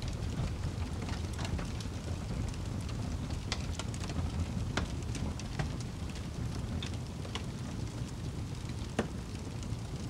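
Wood fire crackling, with scattered sharp pops over a steady low rumble of flame. The loudest pop comes near the end.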